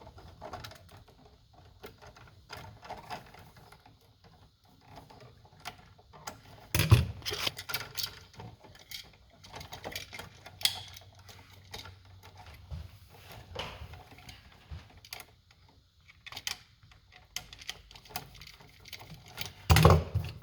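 Scattered small clicks and taps of a wall switch, its copper wire and hand tools being handled as the wire end is bent and fitted to the switch terminal, with a louder knock about seven seconds in and another near the end.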